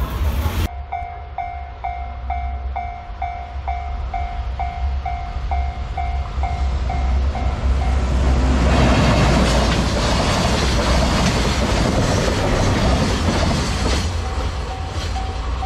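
Japanese level-crossing alarm ringing about twice a second as a freight train hauled by an EF210 electric locomotive approaches. From about eight seconds in, the noise of the passing locomotive and container wagons on the rails covers it, and the alarm comes through again near the end.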